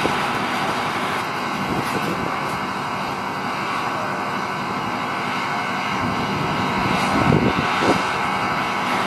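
Steady drone of diesel engines and machinery running on a working sand dredger, with a faint steady whine above it. A couple of brief louder sounds come near the end.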